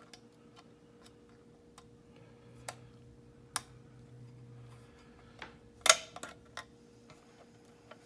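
Irregular small metal clicks and ticks of a pick wire and tensioner working the levers inside a large lever padlock, with one sharper click about six seconds in.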